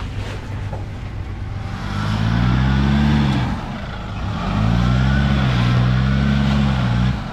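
A four-wheel drive's engine revving twice while being driven over rough off-road ground. The first rev rises and falls over about a second and a half; the second is held for about two and a half seconds and cuts back sharply near the end.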